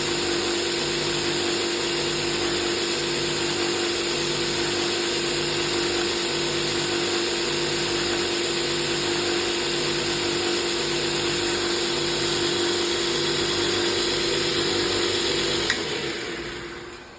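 Belt grinder running unloaded on freshly replaced bearings with a worn belt: a steady hiss and hum with a low throb about once a second. Near the end a sharp click, then it spins down and falls quiet.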